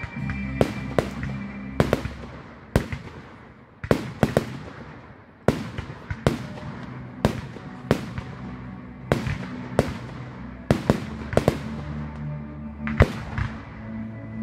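Aerial fireworks shells bursting in quick, irregular succession, about twenty sharp bangs one after another, with music playing underneath that drops away for a few seconds early on and then comes back.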